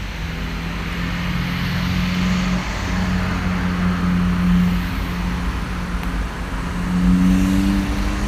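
Hino 500 truck's diesel engine running steadily with a low hum and a hiss over it, its pitch rising slightly near the end.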